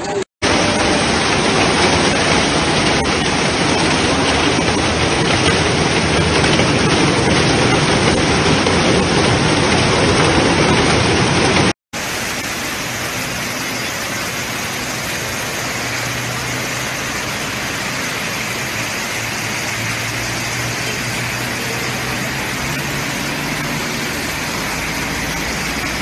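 Heavy hail and rain pelting down on a street and parked cars, a dense steady clatter and hiss. It cuts abruptly about 12 seconds in to a slightly quieter stretch of hail falling on a wet road, with a low car-engine hum underneath.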